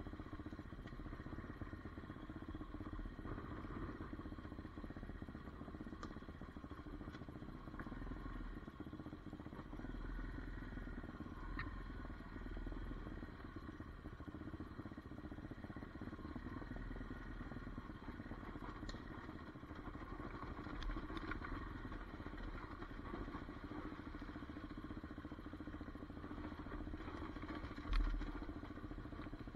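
Hawk 250 DLX dual-sport motorcycle's single-cylinder four-stroke engine running at a steady pace while riding a rough dirt trail, with light clattering from the bike over stones. A single loud thump comes near the end.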